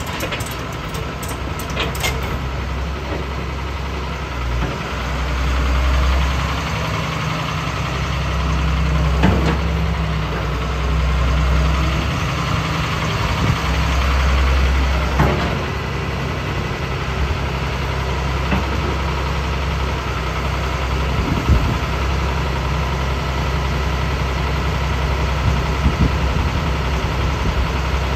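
Caterpillar 320L crawler excavator's diesel engine running while the boom and bucket are worked. The engine swells about five seconds in and eases after about fifteen seconds, with a few short knocks about nine, fifteen and twenty-one seconds in.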